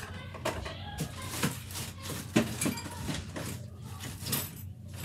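Rummaging through a drawer of baby-care items: scattered light knocks and clatter of small objects being moved about.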